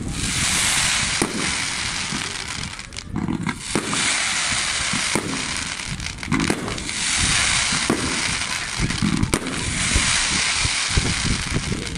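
Fireworks: ground fountains hissing in long sprays of sparks, broken by sharp bangs and crackles every second or two.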